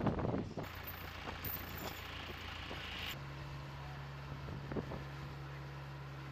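Aircraft tow tractor's engine running with a steady low hum. It comes in more clearly after an abrupt change about halfway, with wind noise at the start.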